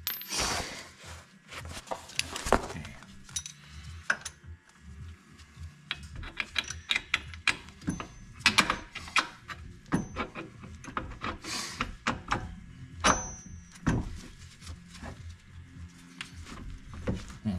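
Irregular metal clicks, taps and knocks as a new rear wheel hub bearing assembly is handled and fitted onto the knuckle by hand, its bolts being lined up.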